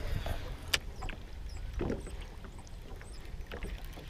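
Water lapping against a small aluminium fishing boat's hull, with wind on the microphone as a steady low rumble. A single sharp click comes a little under a second in, with lighter ticks scattered after it.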